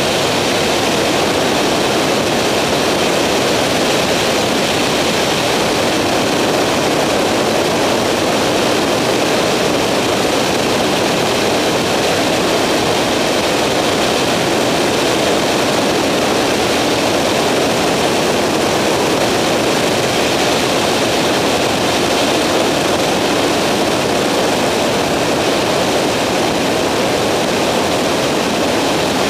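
Skyranger microlight's engine and propeller running at a steady, unchanging drone in level flight, heard from on board.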